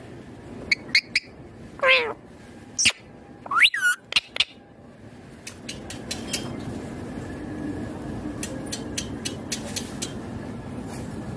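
Ringneck parrot calling: several short, pitched calls in the first half, one sliding steeply down in pitch about two seconds in, then a low steady background with scattered clicks.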